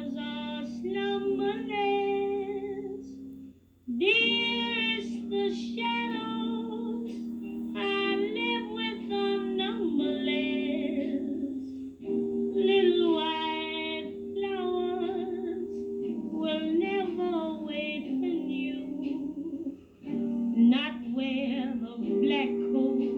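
A song: a woman singing with instrumental accompaniment, the phrases breaking off briefly about 4, 12 and 20 seconds in.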